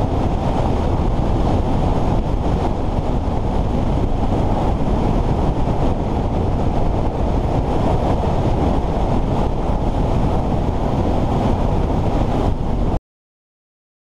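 Steady wind rush over the camera microphone of a motorcycle ridden on the open road, drowning out the engine. It cuts off suddenly to silence about a second before the end.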